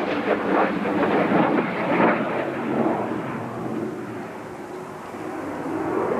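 Jet roar of Blue Impulse Kawasaki T-4 jet trainers flying over. The roar eases off about four seconds in and then builds again.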